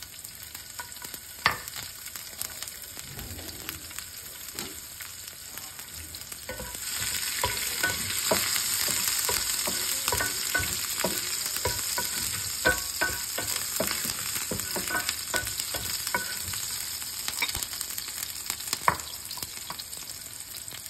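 Cumin, mustard seeds and chopped green chillies sizzling in hot oil in a nonstick frying pan, stirred with a wooden spatula, with scattered clicks and taps. The sizzle grows clearly louder about seven seconds in.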